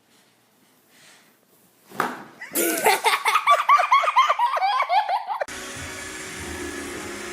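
A small child laughing in a rapid run of high-pitched giggling peals, about four or five a second, for roughly three seconds. It cuts off suddenly and is followed by a steady hiss with a low hum.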